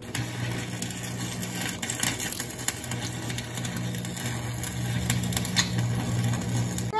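Electric arc welder laying tack welds: a continuous crackle with frequent sharp pops, over a steady low hum.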